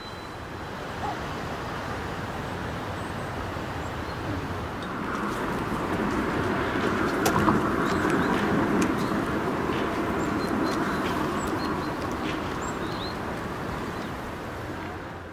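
German class 52 2-10-0 freight steam locomotive 52 7596 running slowly into the station, a steady hiss and rumble that swells to its loudest about halfway through and eases off near the end. Faint high bird chirps and a few light clicks sit above it.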